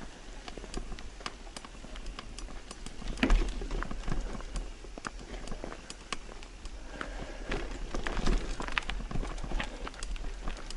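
Irregular clicking and knocking footsteps on a stony trail, several a second, loudest about three seconds in and again around eight seconds in, over a low steady rumble.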